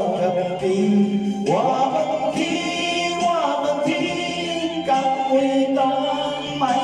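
A man singing a Taiwanese Hokkien love song into a karaoke microphone over a backing track, drawing out long held notes and sliding between pitches.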